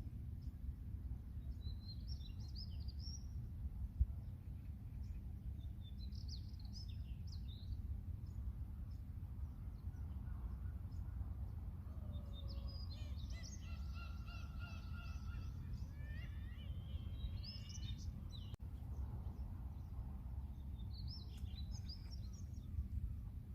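Seagulls calling in scattered bursts, a longer call in the middle and quicker rising calls after it, over a steady low rumble.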